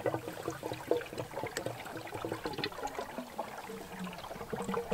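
Water running by gravity from a reservoir down a hose and PVC pipe into a PVC trough, just after the ball valve is opened. It comes as an uneven run of many small pops and splashes.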